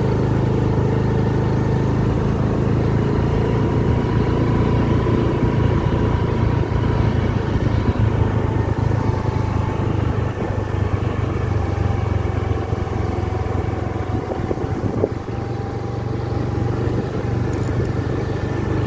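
Two-wheeler engine running steadily on the move, with wind rumble on the microphone. The engine eases off briefly about fifteen seconds in.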